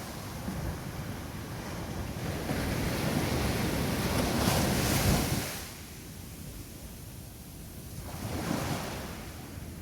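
Ocean waves breaking on a beach: a wave builds to a loud crash about five seconds in and falls away quickly, and a smaller wave washes in near the end. Wind buffets the microphone throughout.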